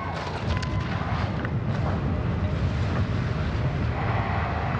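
Downhill skis running fast on a hard, icy race course: a steady rumbling rush of ski bases and edges on the snow mixed with wind, with a few sharp edge scrapes in the first second and a half.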